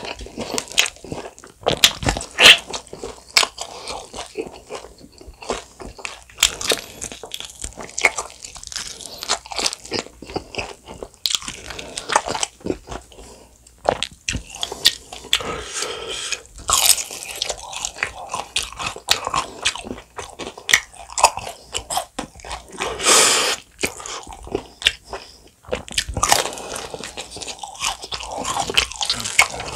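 Close-miked biting and chewing of bone-in fried chicken coated in a thick spicy sauce: irregular crunches of the fried crust with wet, sticky mouth sounds. A longer, louder noisy sound comes a little past two-thirds of the way through.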